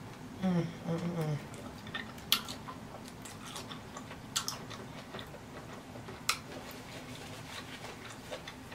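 A person biting and chewing saucy seafood close to the microphone, with scattered wet mouth clicks and smacks. A short hummed 'mmm' comes about half a second in.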